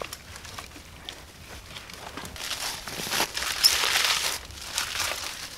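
Birch bark being peeled and torn off a birch trunk by hand: a rustling, tearing noise that gets louder about two seconds in, with one sharp snap in the middle.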